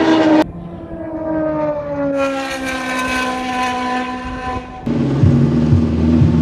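Historic Formula 1 race car engines. First a car's engine note falls steadily in pitch as it goes by; then, after a sudden cut a little before the end, a louder engine runs with its pitch stepping up and down.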